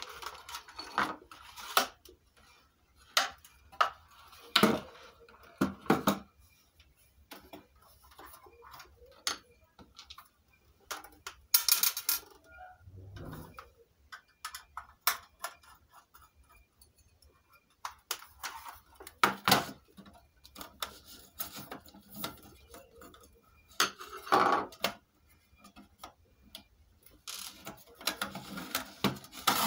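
Irregular clicks, knocks and clatter of plastic electronics parts and tools being handled on a wooden desk as a home theatre's front panel is taken off, with a low thump about 13 seconds in.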